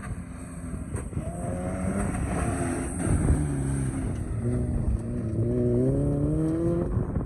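Maruti Gypsy's four-cylinder petrol engine revving hard as the jeep climbs a dirt track and passes close by. Its pitch climbs, drops briefly about three seconds in, then climbs again.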